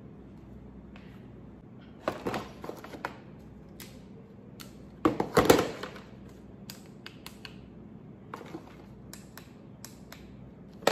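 Handling noise: plastic items such as handheld flashlights being picked up and shuffled in a box on a counter, with a run of knocks about two seconds in, a louder clatter about five seconds in, then scattered light clicks.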